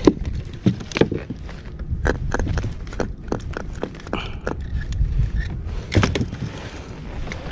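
Scattered irregular knocks and clatters as a freshly caught fish, the jig and the landing net are handled inside a plastic fishing kayak's cockpit, over a steady low rumble.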